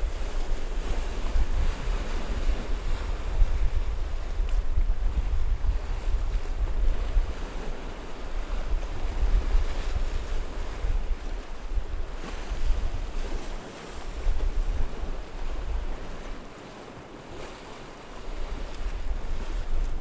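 Ocean waves breaking and washing over a choppy sea, with wind buffeting the microphone in a gusty low rumble. The wind rumble eases for a couple of seconds near the end.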